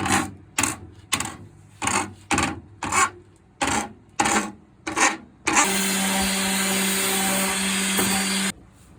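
Rhythmic rasping strokes on wood, about two a second, like a board being sanded or filed by hand. After about five seconds they give way to a steady whir with a constant hum, like a small electric tool, which runs for about three seconds and cuts off suddenly.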